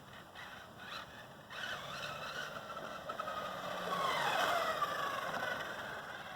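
1/8-scale Exceed Mad Drift RC drift car driving past, its motor whine sliding up and down in pitch as it speeds up and slows, loudest about two thirds of the way through.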